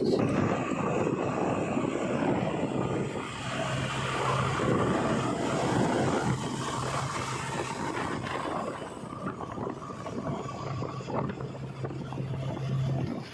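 Diesel engines of a backhoe loader and tractors running at a work site, a dense mechanical rumble over a steady low hum. It is louder in the first half and eases off after about nine seconds.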